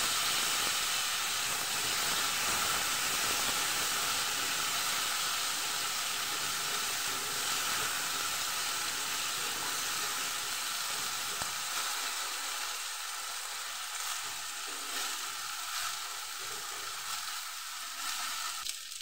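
Cut taro and potato pieces sizzling in a frying pan of hot oil, a steady hiss that slowly dies down. A wooden spatula stirring them adds a few faint scrapes in the second half.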